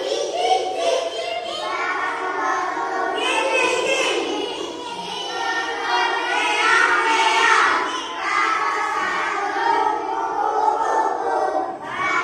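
A group of children chanting together in a sing-song unison, reciting a list of words, many voices overlapping.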